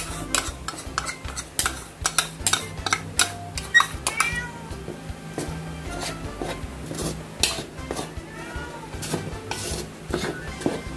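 Metal spoon stirring dry flour and cornstarch in a ceramic bowl, clinking and scraping against the bowl in quick irregular strokes, with a few brief squeaks about four seconds in.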